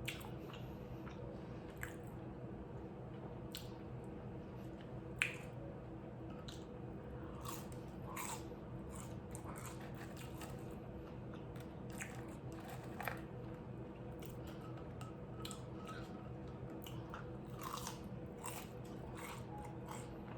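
A person chewing and biting into a pizza puff cheeseburger, with irregular clicks and crunches throughout, the loudest about five seconds in.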